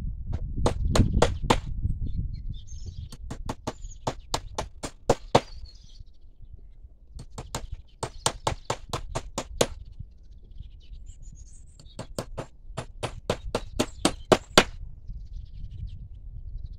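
Hammer striking nails into fence wood in four quick runs of evenly spaced blows, about four to five a second. Birds chirp in the pauses.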